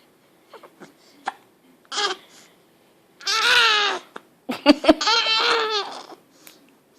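Baby girl hiccupping a few times, then letting out a long high squeal about three seconds in, followed by a run of babbling, laughing sounds.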